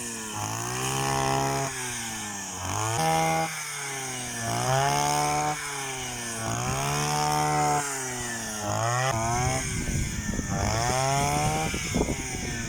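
Small engine of a grass-mowing machine running under load, its pitch rising and falling over and over every two seconds or so as it works through the grass. From about nine seconds in a rough rattling clatter joins the engine.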